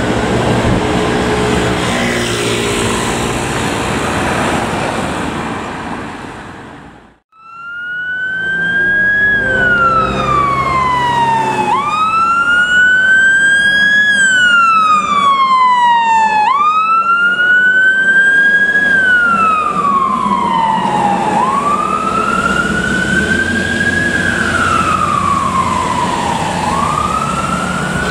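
A fire engine's siren and engine noise that fade out about seven seconds in. After a brief gap, another fire engine's siren is heard wailing over its engine: a quick rise, a slower climb to the top and a slow fall, repeating about every five seconds.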